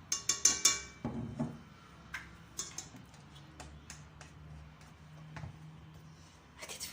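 Spoon clinking against a mixing bowl: a quick run of four or five ringing taps at the start, then scattered lighter clicks and knocks as ingredients are handled.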